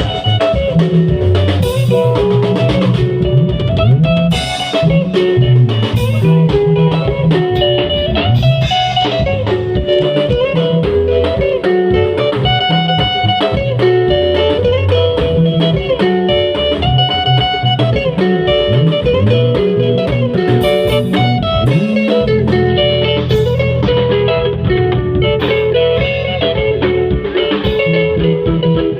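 Band music with electric guitar, bass and drum kit playing a steady blues-rock groove.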